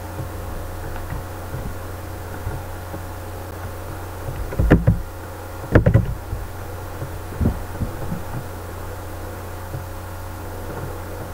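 Steady electrical hum picked up by a computer's microphone, with a few soft low thumps and knocks about halfway through as the desk, mouse and keyboard are handled to stop the screen recording.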